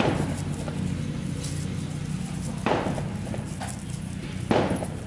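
Three dull knocks, about two seconds apart, as a bundle of paper firecracker tubes is tapped and pressed down on the work board, over a steady low hum.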